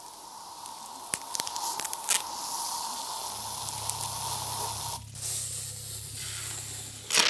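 Electroacoustic music built from hissing noise with a steady high tone and scattered clicks; a low hum comes in about three seconds in, the hiss drops out briefly at about five seconds, and a loud burst sounds near the end.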